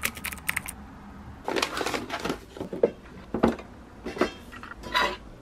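Irregular short knocks and clatters in small clusters: kitchenware being handled, with a stainless steel cup lifted off a shelf.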